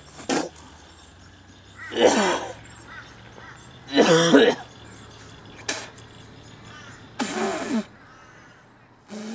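A young man retching and coughing in four loud bouts, the loudest about four seconds in, with a strained voiced groan in it.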